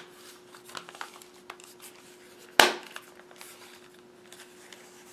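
Plastic back cover of a Texas Instruments TI-30XA calculator being pressed back onto the case by hand: faint handling clicks and rustles, and one sharp loud click about two and a half seconds in as the cover snaps into place.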